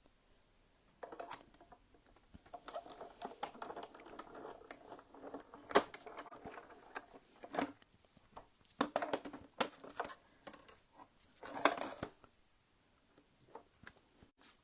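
Paper being run through a die-cutting machine and handled: irregular grinding and rustling with scattered clicks and clacks of the cutting plates, the sharpest about six seconds in.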